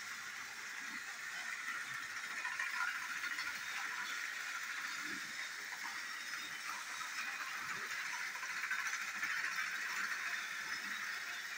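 Battery-powered toy train engine whirring and rattling as it runs laps of a plastic track oval, pulling its coaches. It grows louder twice, about 3 seconds in and again near 9 seconds.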